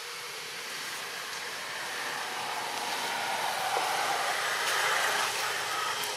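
Steady outdoor background noise, a rushing hiss that swells about halfway through and eases again near the end.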